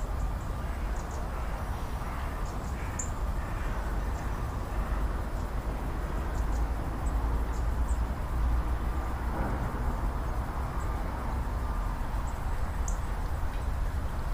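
Wind buffeting the microphone by open water, a steady low rumble, with a few faint bird calls in the first few seconds.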